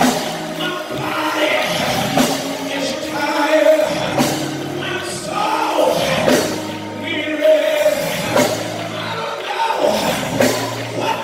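Live church worship music: singing over instruments, with long held notes.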